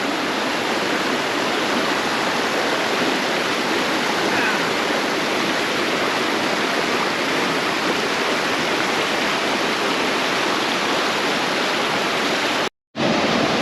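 Steady rush of a monsoon-swollen waterfall, water pouring heavily over rocks close by. The sound cuts out briefly about a second before the end, then returns.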